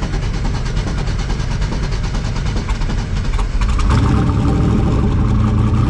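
Car engine running at idle, with a louder, steady engine note coming in about three and a half seconds in.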